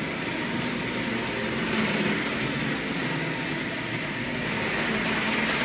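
Steady mechanical background noise of a workshop, an even rushing hum with no single event standing out.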